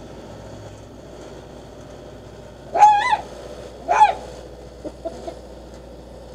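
Two short, high-pitched animal calls about a second apart, each rising then falling in pitch.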